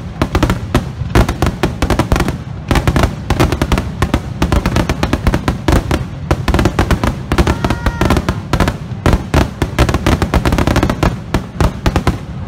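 Aerial fireworks shells bursting in a dense, continuous barrage: many overlapping bangs and crackles following one another several times a second, with a heavy low rumble underneath.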